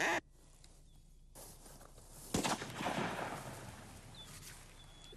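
The last quack of a string of rhythmic duck quacks. Then rustling, and a single sharp crack about two and a half seconds in, followed by about a second of rustling noise.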